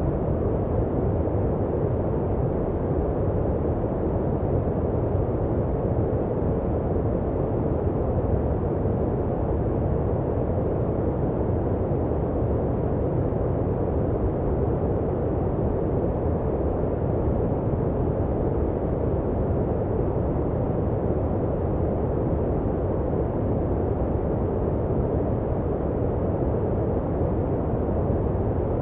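Steady, unchanging synthetic noise, deep and muffled: a low rushing hum with little hiss at the top.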